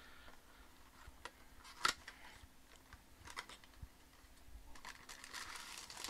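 Faint handling of a small cardboard box being opened: scattered light clicks and taps, the sharpest about two seconds in, then a plastic bag crinkling as it is pulled out near the end.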